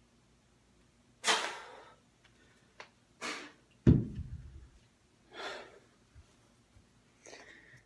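Hard, breathy exhalations after a kettlebell set, four of them about two seconds apart. Just before the midpoint the kettlebell is set down on the floor with a heavy thud, the loudest sound.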